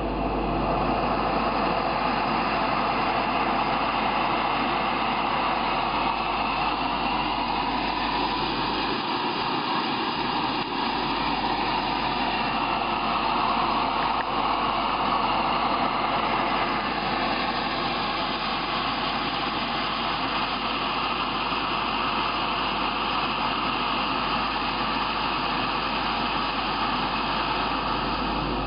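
Shmel GSh-35 gas stove burner burning with a steady rushing flame noise, rising a little in the first second and then holding level.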